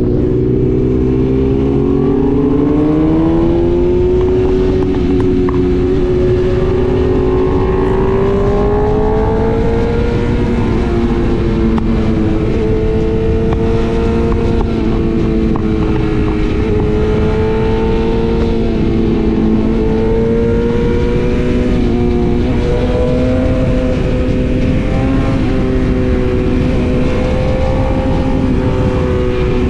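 BMW S1000RR inline-four engine accelerating, its pitch rising over the first ten seconds or so, then holding fairly steady at highway speed, under heavy wind rush on the microphone.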